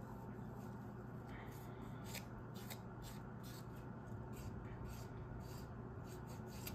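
Nail file rubbing lightly against the edge of a cured resin coaster in a series of short, faint scratching strokes, smoothing down a small overspill ridge.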